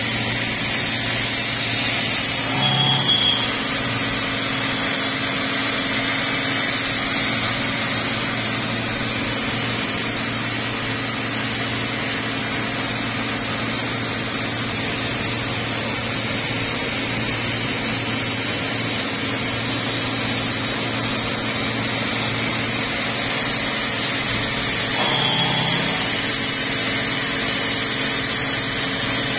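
Fadal VMC 6030 CNC vertical machining center running with its spindle turning: a steady machine hum and hiss. Two brief changes in the sound come a few seconds in and again near the end.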